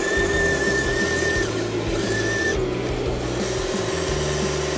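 Small electric motor and gear drive of an RC tractor truck whining as it crawls through mud. The whine cuts out about a second and a half in, comes back briefly, then stops as the throttle is let off.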